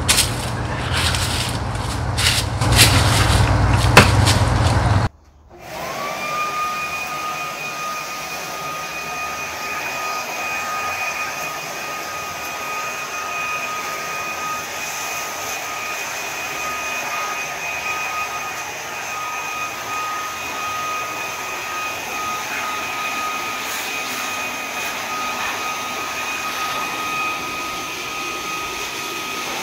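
Rough scraping and clattering at a plastic bucket, with a sharp knock about four seconds in, cut off abruptly. A corded electric leaf blower then starts, its motor whine rising quickly to a steady high pitch and running evenly to the end.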